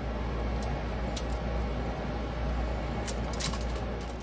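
Seasoned raw chicken drumsticks being handled and set into a foil-lined metal baking pan, with a few sharp clicks and crinkles about half a second, a second and three and a half seconds in. Under them runs a steady rushing noise with a low hum.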